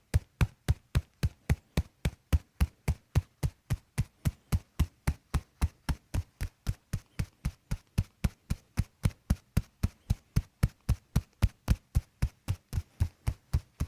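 Steady, even rhythmic percussive tapping, about three dull knocks a second: percussive massage strokes on the body.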